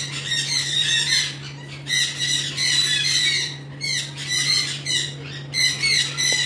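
Several conures squawking, their shrill, harsh calls coming thick and overlapping one another.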